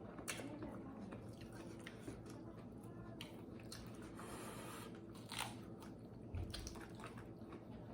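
Someone chewing and crunching crisp food, with scattered sharp crunches between quieter chewing.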